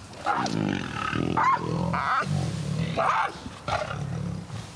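White tiger giving a run of short calls, about one a second, over a steady low rumble, while it takes meat from a keeper's hand through the enclosure fence.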